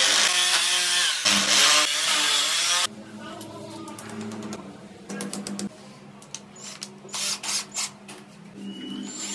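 Power drill with a masonry bit boring into ceramic wall tile, running loud for about three seconds with a brief pause about a second in. After that come lighter taps and clicks as fixings are tapped in and mirror clips are screwed on with a cordless drill.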